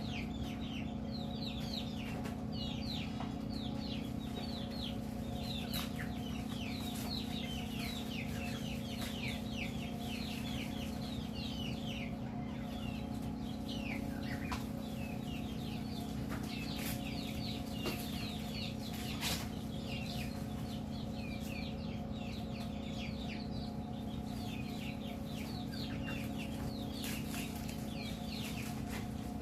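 Chickens calling continuously with rapid, high peeps that fall in pitch, over a steady low hum. A few soft taps come in between.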